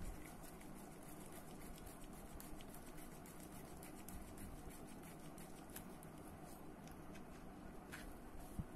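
Faint small clicks and handling noise of a screwdriver turning a tiny screw into a fishing reel's frame, over a steady low room hum, with a slightly sharper click near the end.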